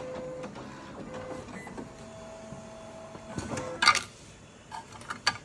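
A small machine whirring in short, steady-pitched runs, with scattered clicks and a loud clatter about four seconds in.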